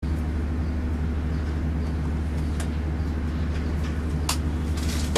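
A steady low mechanical hum, with a couple of short clicks about two and a half and four seconds in.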